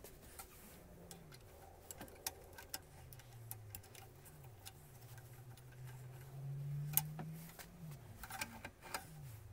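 Small metal clicks and taps as a metal nut is set into a drill-press vise and the vise is handled, the sharpest click about seven seconds in and a quick cluster near the end. Under them runs a faint low hum that slides up and down in pitch.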